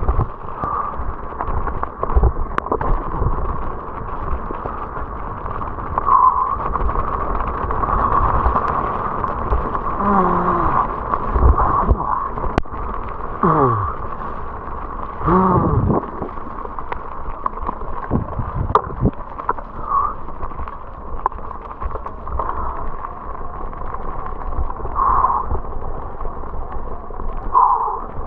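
Mountain bike riding fast down a wet gravel track: tyres rumbling and rattling over loose stones, with wind on the microphone, a steady high buzz and occasional knocks from bumps. Near the middle come a few short squeals that slide in pitch.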